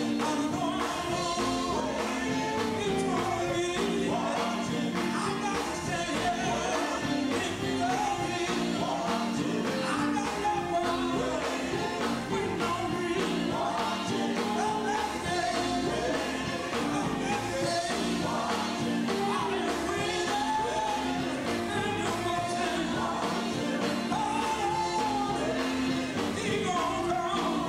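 Live gospel quartet singing through microphones, a lead voice over the other singers, backed by electric guitars and drums with a steady beat.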